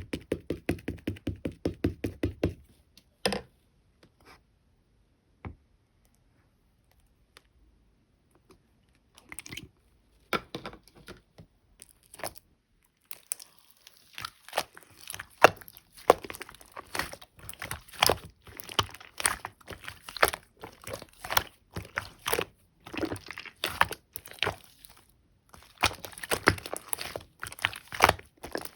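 Hands poking, stretching and kneading pink slime mixed with clay, making dense sticky clicks, pops and crackles. It opens with a quick run of taps for about two seconds and is nearly quiet until the slime play starts about ten seconds in.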